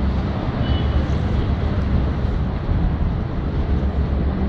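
Steady low rumble of a tour boat's engine on the river, with wind buffeting the microphone.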